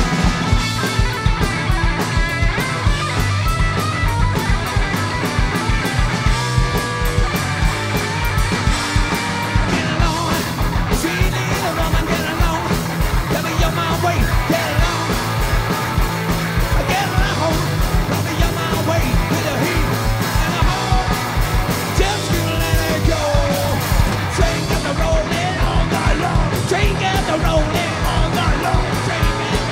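Live rock band playing at full volume: electric guitar, bass guitar and a drum kit keeping a fast, driving beat, with a man singing and shouting lead vocals through stretches of it.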